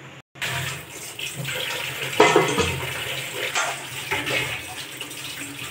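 Tap water running steadily into a stainless-steel kitchen sink as dishes are washed, with a louder clatter of utensils about two seconds in.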